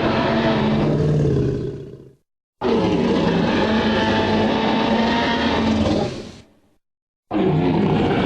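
Tyrannosaurus roar sound effects played one after another: one roar fades out about two seconds in, a second long roar starts abruptly and fades out, and a third starts abruptly near the end, with dead silence between them.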